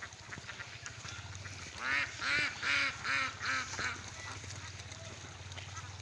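A flock of farm ducks quacking: a quick string of six or seven loud quacks about two seconds in, then only softer background calls.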